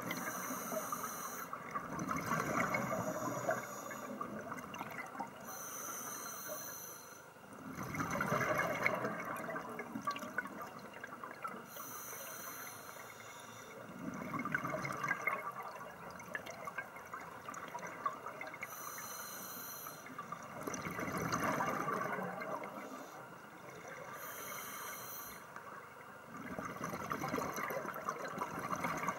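A scuba diver's regulator underwater: a short hiss on each inhalation, then a longer burble of exhaled bubbles, about one breath every six seconds.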